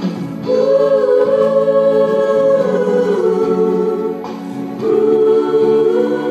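Choir singing a Khasi gospel song over instrumental accompaniment, in two long, held phrases with a short dip between them about four seconds in.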